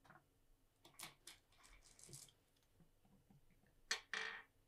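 Go stones clicking faintly as fingers pick a black stone out of the wooden bowl, then a sharper clack about four seconds in as the stone is set down on the Go board.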